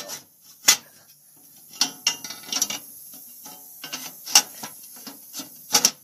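Scraping and several sharp clicks as the sheet-metal pilot access cover of a gas furnace is fitted back into place and handled.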